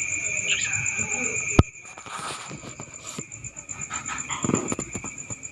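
Crickets chirping steadily at night, two trills at once, the higher one pulsing quickly. A single sharp click about a second and a half in, after which the background is quieter, with faint rustling later.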